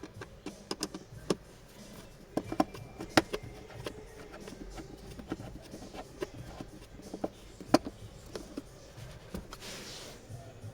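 Irregular sharp clicks and knocks of plastic parts being handled, as of a cabin filter and its housing cover, with a brief soft rustle near the end.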